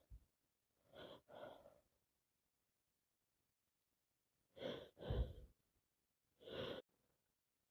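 Breathing of a person with a cold, between sneezes: two soft breaths about a second in, then, after a pause, two louder breaths and a last one near the end.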